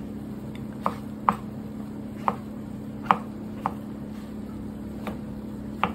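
Kitchen knife slicing king oyster mushrooms into strips on a plastic cutting board: about seven sharp knocks of the blade meeting the board, irregularly spaced.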